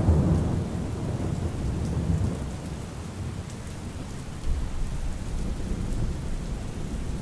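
Steady rain with a low rumble of thunder, loudest at the start and dying away over the first few seconds.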